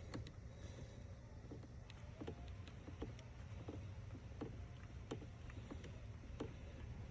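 Faint, scattered clicks and light taps of metal engine parts and tools being handled, about one or two a second, over a low steady rumble.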